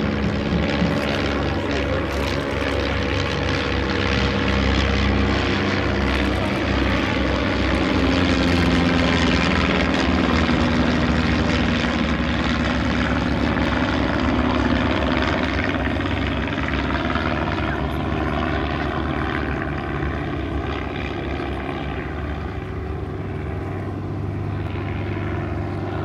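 Piston engine and propeller of a small aerobatic plane flying a display pass, a continuous drone. It grows louder as the plane comes close around the middle, then fades as it pulls away.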